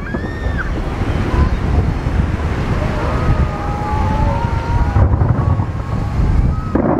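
Fireworks finale: aerial shells launching and bursting so thickly that their booms blur into a continuous low rumble. Thin whistling tones ride over it, one in the first half second and several about three to four and a half seconds in.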